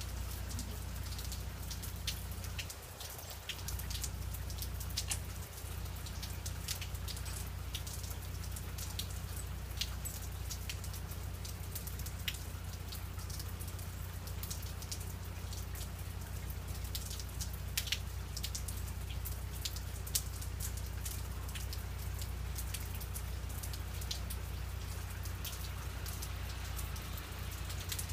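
Freezing rain pattering on ice-glazed pine and shrub foliage, with many scattered sharp ticks of single drops, over a steady low rumble.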